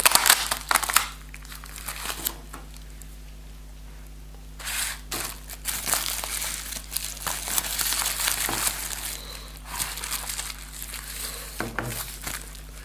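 Plastic packaging being unwrapped by hand, bubble wrap crinkling and crackling in bursts, loudest right at the start and again through the middle.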